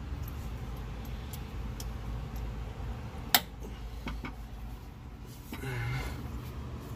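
Light metallic ticks and clicks of hands working a parking-brake cable held with locking pliers, with one sharp click about halfway through, over a steady low hum.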